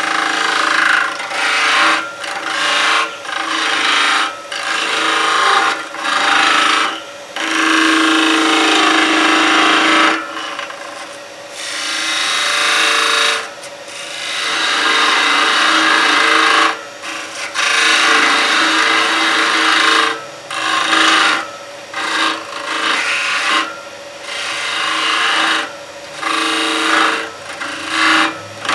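Record Power Coronet Herald wood lathe running with a steady hum while a hand-held turning tool cuts the spinning golden cypress blank. The cuts come as repeated scraping strokes, most under a second, a few lasting two seconds or more, with short pauses between them.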